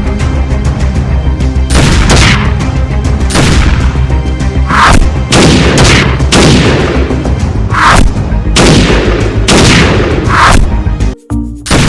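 Loud epic-style background music with heavy booming hits every second or so, each trailing off in a falling sweep. It cuts out briefly near the end.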